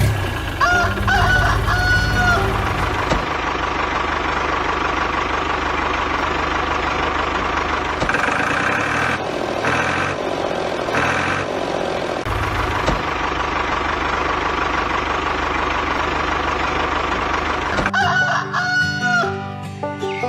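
A rooster crowing and chickens clucking in the first few seconds and again near the end. Between them runs a steady mechanical hum.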